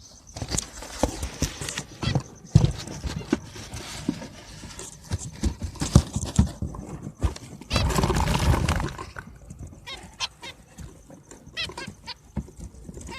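A phone being handled and pushed into a wire finch cage: repeated knocks, clatters and rubbing against the cage, with a burst of rustling about eight seconds in. From about ten seconds on, zebra finches call with short, quick chirps.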